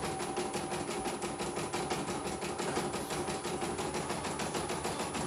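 CNY E900 portable computerized embroidery machine stitching a design: a rapid, even needle clatter of about ten stitches a second over the steady hum of its motor.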